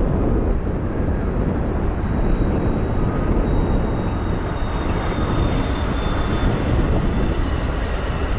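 Amtrak Siemens Charger diesel-electric locomotive running past close by, followed by its passenger cars rolling steadily over the rails. A faint high whine sounds through the middle of the pass.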